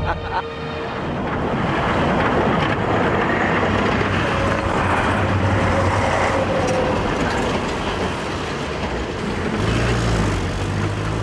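A car on the move, with a steady rush of road and engine noise.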